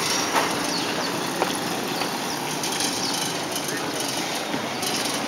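Street traffic noise: motorcycle engines running under a steady hiss, with two short knocks about half a second and a second and a half in.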